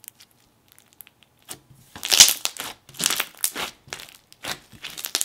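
Clear purple Elmer's slime mixed with bingsu beads being pressed and squished by hand, giving crackling, crunchy pops. A few faint clicks at first, then denser, louder crackles from about two seconds in.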